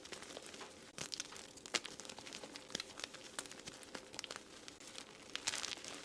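Blocks of gym chalk being crushed and crumbled by hand: irregular dry crunches and crackles, with a louder cluster of crunches near the end.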